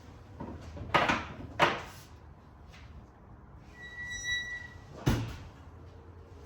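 Two sharp knocks close together, then a short electronic beep, then another knock, like a door or cupboard being handled.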